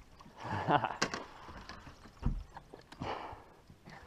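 A hooked fish thrashing and splashing at the surface beside a boat: two splashes about two and a half seconds apart, with a dull thump between them.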